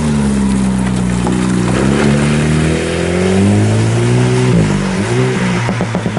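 Rally car accelerating hard past on a wet stage, its engine note climbing steadily through a gear. About four and a half seconds in the revs drop sharply at an upshift, then climb again, with a rapid series of sharp pops near the end. A steady hiss of rain and spray sits under it all.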